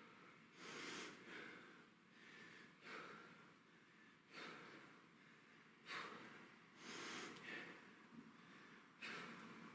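A man breathing hard from exertion during a workout: short, forceful, faint breaths roughly once a second.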